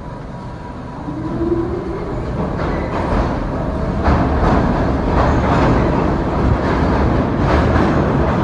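New York City subway train running through the station, getting louder, with a short rising whine early on and repeated clacks of wheels over rail joints above a steady rumble.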